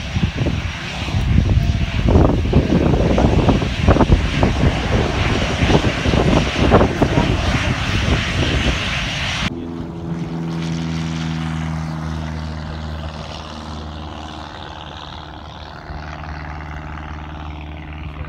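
Jet engines of an Airbus A320 running as it rolls along the runway, a loud, gusty rumble. About halfway through this gives way to the steady drone of a light single-engine propeller plane climbing away after takeoff, slowly fading.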